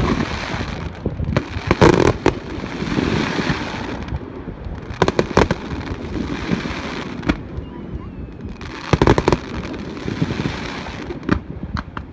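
Fireworks display: aerial shells bursting in volleys of sharp bangs, about every three to four seconds, with a steady rushing hiss between the volleys.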